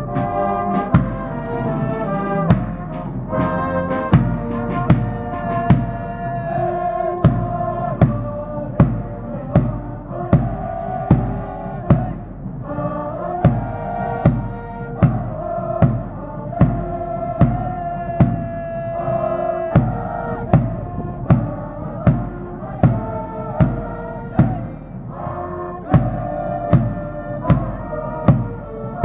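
Cheering-squad brass band playing a cheer tune: trumpets and other brass carry the melody over a drum struck on a steady beat, about three strokes every two seconds.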